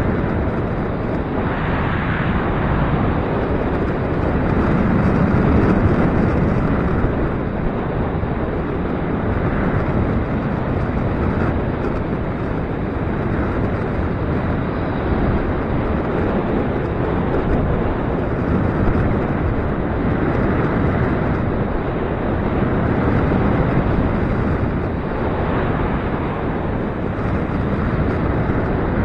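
Gusty wind buffeting the microphone: a loud, steady low rushing that swells and eases every few seconds.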